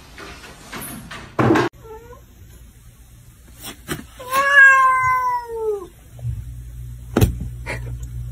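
Domestic cat meowing: a short meow about two seconds in, then one long, loud meow that drops in pitch at its end. A brief loud noise burst comes just before, and a sharp knock near the end.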